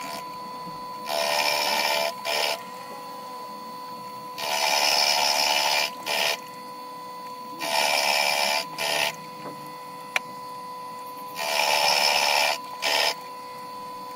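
Proxxon PF230 mill/drill head running with a steady whine while its end mill cuts into a metal workpiece, scoring the edges. It makes four louder cutting passes of a second or so, each followed by a short burst.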